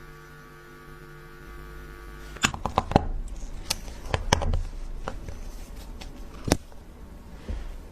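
Steady electrical hum, then from about two and a half seconds in a string of sharp, irregular clicks and taps from tools and parts being handled during watch repair work.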